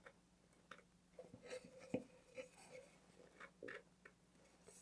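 Faint scraping and light taps of a fiberglass bulkhead disc being worked by hand into the end of a fiberglass coupler tube, with one sharper tap about two seconds in.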